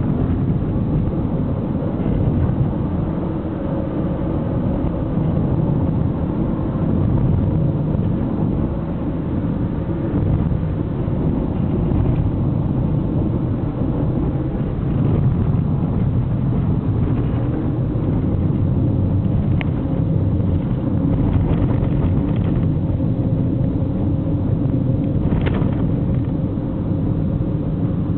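Steady low rumble of road and engine noise inside a moving car's cabin, with a faint steady hum, and a couple of brief faint clicks in the second half.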